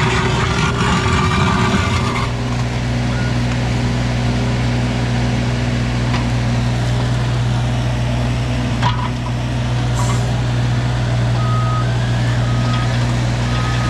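Wacker Neuson mini excavator's diesel engine running steadily, with a couple of knocks as it works. Three short beeps of a warning alarm come near the end.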